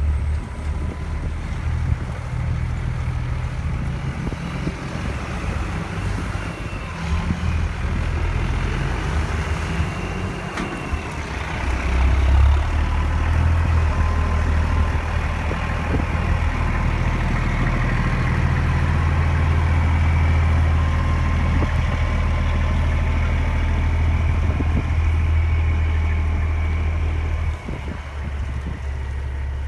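Heavy farm harvest machinery running with a steady low engine drone and a faint high whine. It grows louder about twelve seconds in, as if passing close or working harder, and drops back shortly before the end.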